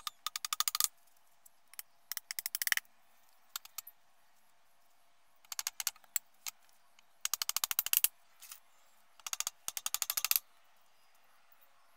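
Hammer nailing bamboo poles together: five quick runs of light, rapid taps with short pauses between.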